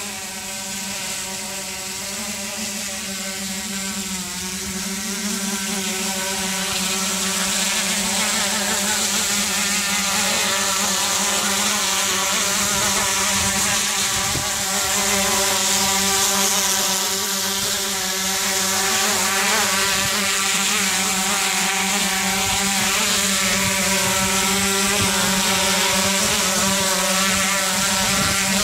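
DJI Inspire quadcopter in flight, its four propellers making a steady, buzzing hum with a slight waver in pitch. It grows louder over the first several seconds as the drone climbs toward and over the microphone.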